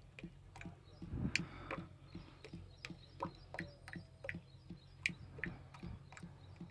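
Engine oil glugging out of the spout of a large unvented oil bucket into a funnel: faint irregular clicks and gurgles a few times a second, with a low steady hum underneath. It pours with difficulty because air can only get back into the bucket through the spout.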